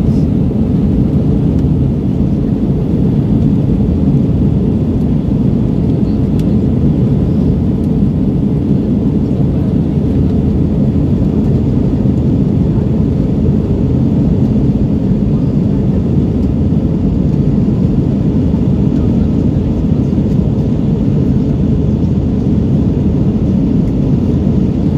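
Cabin noise inside an Airbus A321 in flight: the engines and rushing air make a loud, deep, even roar that does not change.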